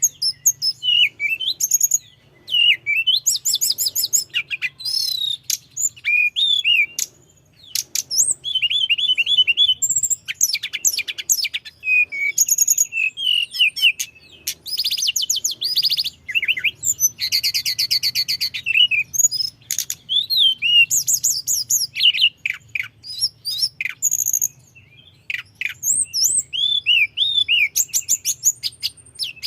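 Tledekan gunung songbird singing vigorously in fast, high-pitched trills and warbling rolls, with only brief pauses between phrases.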